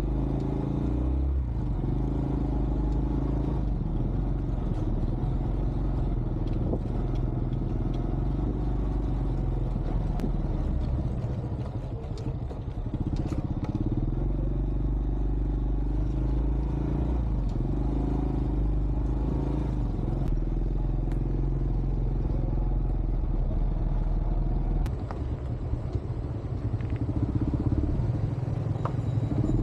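Small motorcycle engine running under way, its note easing off briefly about twelve seconds in and again near the end before picking up.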